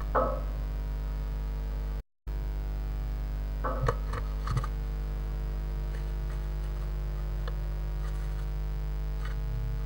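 Steady electrical mains hum on the nest-box camera's audio, with a short scrabble right at the start and a few scratches and taps about four seconds in from the blue tit moving at the box. The audio cuts out completely for a moment about two seconds in.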